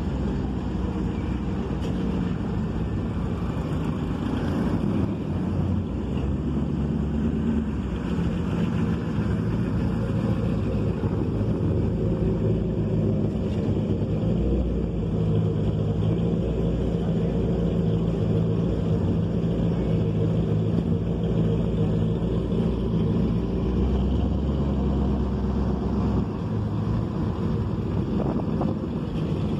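Engines of classic cars and a custom van running as they drive slowly past one after another, a steady low hum whose pitch shifts as each vehicle goes by.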